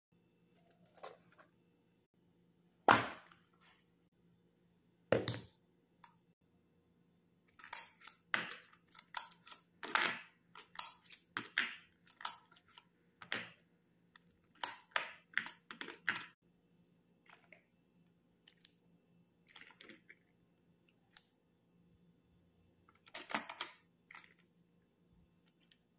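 Brass .38 Special cartridges clinking as they are picked from a plastic ammo box and dropped into the chambers of a stainless revolver's open cylinder: an irregular run of short metallic clicks and taps. Two louder knocks come about 3 and 5 seconds in.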